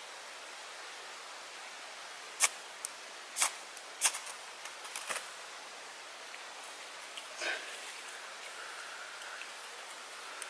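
Ferro rod (fire steel) scraped hard with a striker three times in quick succession, each a sharp rasp, then a few lighter scrapes. The sparks light the cotton wool tinder. About seven and a half seconds in there is a softer, longer rustle.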